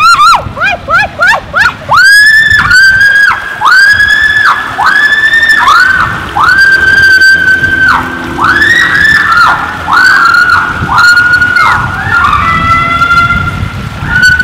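A woman screaming over and over as she rides down an enclosed water slide: quick rising and falling yelps for the first two seconds, then a string of long high shrieks, each held at one pitch and then dropping off.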